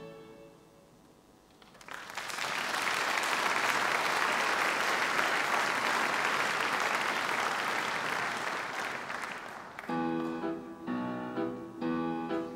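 The end of a piece dies away, then an audience applauds for about eight seconds. About ten seconds in, a children's violin ensemble with piano starts the next piece in short, separated notes.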